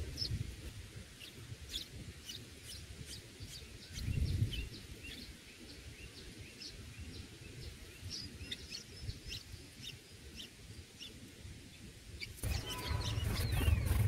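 Bulbul nestlings chirping in short, high, scattered peeps while being fed at the nest, with low rumbles near the start and about four seconds in. About twelve seconds in, the sound gets louder, with busier chirping over a heavy low rumble.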